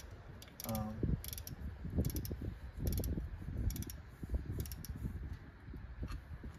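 Socket ratchet clicking in short runs as bolts are run back into their holes, with small metal knocks and tool handling between the runs.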